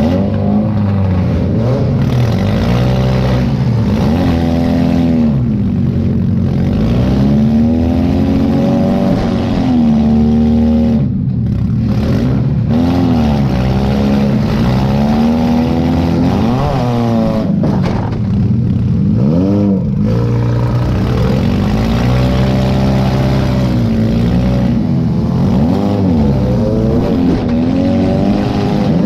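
Demolition derby car's engine heard from inside the cab, revving up and falling back again and again as the driver maneuvers around the arena.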